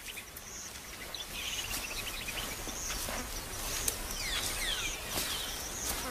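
Small wild birds chirping and calling over a steady outdoor hiss. There is a quick run of short notes about a second and a half in, and several quick falling whistles a little past the middle.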